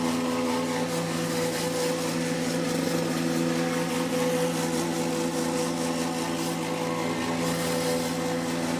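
Power Horse plate compactor's small gasoline engine running steadily at an even pitch, compacting a paver base.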